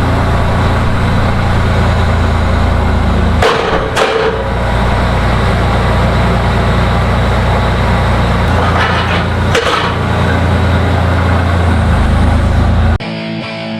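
Skid steer engine running steadily under load, its pitch and level shifting a few times, with two pairs of sharp metal clanks, the first about three and a half seconds in and the second a few seconds later. Music with electric guitar cuts in abruptly near the end.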